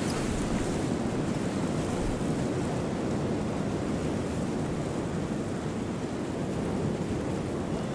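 Steady coastal wind buffeting the microphone, mixed with the low rush of sea surf.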